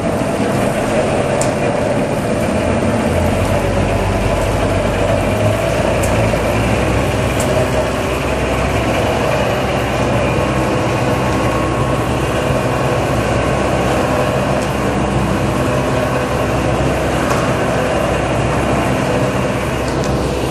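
J H Day double ribbon mixer running, its 10 hp drive humming as the stainless steel ribbons turn and tumble a load of coloured balls through the trough in a steady rattle. The low hum deepens and strengthens about three seconds in as the variable speed drive is adjusted.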